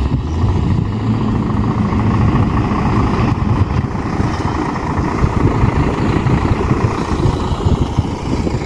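Loud, unsteady low rumble of wind buffeting the phone's microphone.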